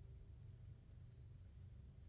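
Near silence: a faint low rumble with a thin, steady high-pitched tone, the background noise of a doorbell camera's microphone.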